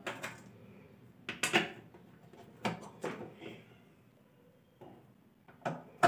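Sharp clicks and knocks from a screwdriver and the plastic base of a mixer grinder being handled as the base's screws are put back and tightened. The clicks come one at a time, about once a second, with a quieter gap after the middle.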